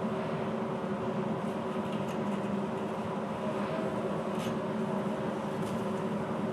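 Steady mechanical hum made of several even tones over a soft hiss, with a few faint, short high-pitched sounds about two, four and a half, and nearly six seconds in.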